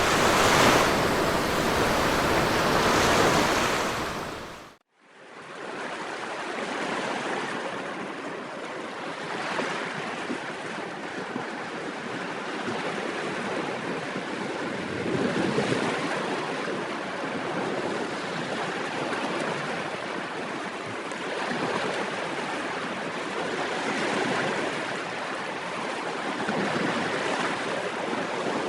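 Sea waves washing onto a beach: a steady rush of surf that swells and ebbs every few seconds. About five seconds in it cuts off abruptly and comes back quieter.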